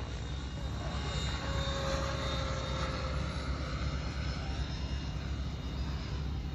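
Radio-controlled helicopter flying a loop with a flip, heard at a distance: a steady drone of rotor and motor over a low rumble, with a faint whine that sinks a little in pitch about two seconds in.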